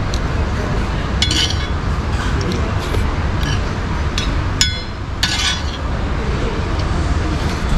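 A metal spoon clinking and scraping against a cast iron skillet: a few ringing clinks, the sharpest about halfway through, over a steady low rumble of background noise.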